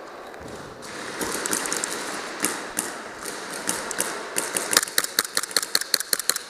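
Airsoft guns firing: scattered single shots, then a rapid string of sharp clacks, about eight a second, over the last two seconds.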